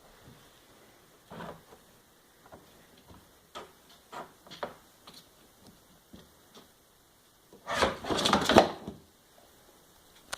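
A kitten scrabbling on a cat pole: scattered light knocks and claw scratches, then a loud burst of scratching and scrabbling about eight seconds in that lasts just over a second.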